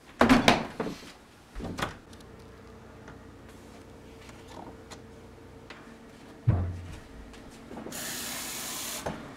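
Kitchen handling sounds: a refrigerator door knocks shut just after the start, with a smaller knock under two seconds later and a dull thump about six and a half seconds in. Near the end, a kitchen faucet runs water into a plastic cup for about a second.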